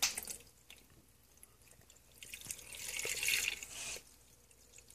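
Water poured from a clear container into the plastic water reservoir of a Black & Decker Mill & Brew coffee maker. A few splashes come at the start, then a steady pour swells and stops about four seconds in.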